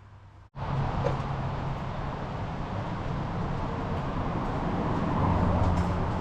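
A vehicle driving: steady engine hum and road noise, starting abruptly about half a second in.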